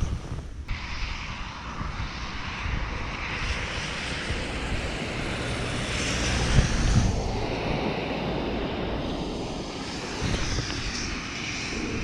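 A steady distant engine drone that builds to a peak a little past halfway and then eases off.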